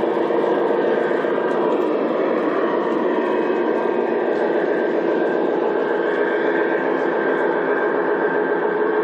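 G-scale model train running on its track: a steady running noise of the train rolling on the rails, even throughout.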